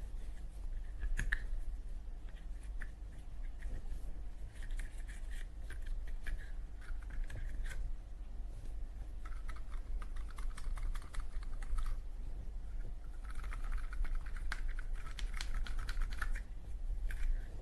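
Cotton swab scrubbing around a Zippo lighter's flint wheel, chimney and cam spring: rapid scratchy rubbing in spells of a second or two, with many small clicks of the metal lighter being handled.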